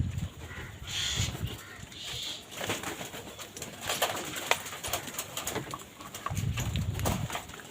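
Pigeons cooing low, with a couple of short higher bird calls and scattered sharp taps.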